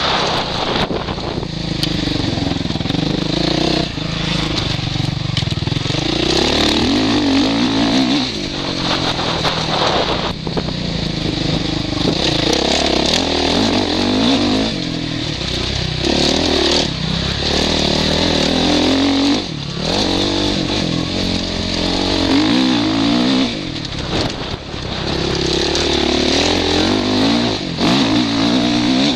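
Suzuki RM-Z 450 motocross bike's single-cylinder four-stroke engine revving hard, heard from a helmet camera. The pitch climbs under throttle and drops away every few seconds as the rider shifts or shuts off for corners, over a steady hiss.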